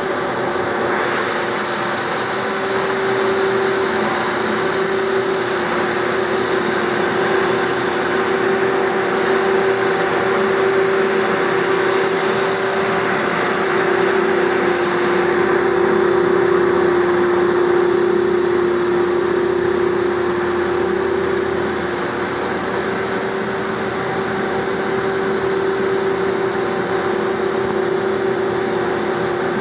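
ShopSabre Pro408 CNC router's spindle driving an oscillating sanding head across a wooden coffee-table top, a steady high whine with a rushing hiss over it. The hiss eases a little about halfway through.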